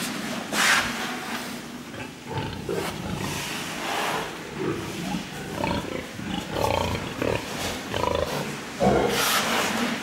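Sows in metal stalls grunting and squealing, many calls overlapping irregularly. Two loud, harsh bursts stand out, about a second in and again near the end.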